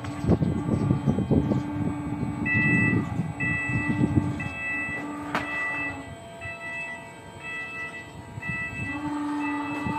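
Warning beeper sounding a steady series of short high beeps, starting a couple of seconds in, over a steady machine hum. Low rumbling and knocking fill the first few seconds, with one sharp click about halfway through.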